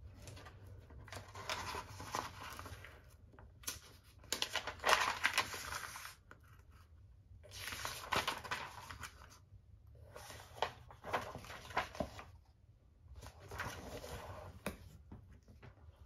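Pages of a hardcover textbook riffled and turned by hand: five bouts of paper rustling with sharp page flicks, with short pauses between them.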